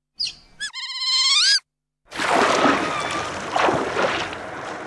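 Otters calling: a brief high squeak, then a high, warbling call with a quavering pitch that rises at its end. About two seconds in, the sound changes abruptly to a loud rushing noise with faint chirps in it.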